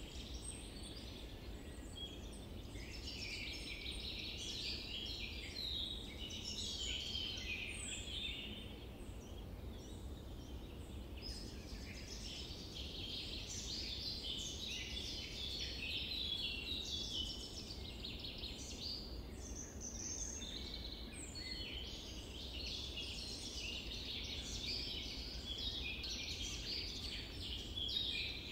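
A dense chorus of many small birds chirping and singing, short overlapping calls without a break, over a low steady rumble.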